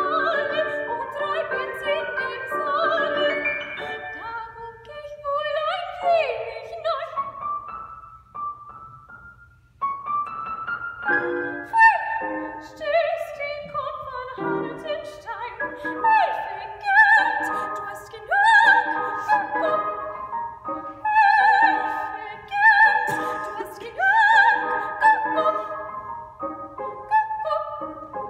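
A female classical singer sings a German art song with piano accompaniment. Around nine seconds in, the music falls almost silent for a moment. The piano then comes back with quick, light, closely spaced notes under the voice.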